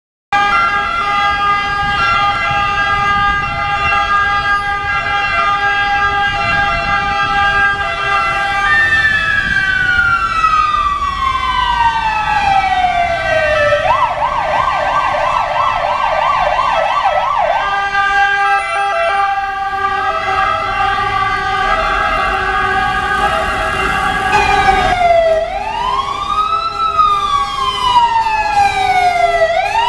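Two ambulances' sirens sounding in traffic. A slow wail falls in pitch, switches for about four seconds in the middle to a fast yelp, then runs in repeated slow rising and falling cycles near the end. Steady held siren tones and traffic rumble run underneath.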